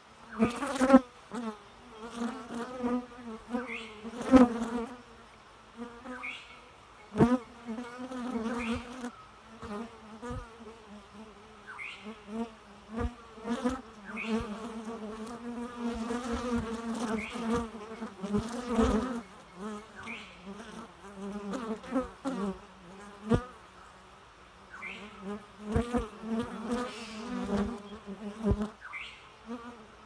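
Bees buzzing as they fly in and out of a wooden hive entrance. The hum swells and fades as single bees pass close, with occasional sharp ticks.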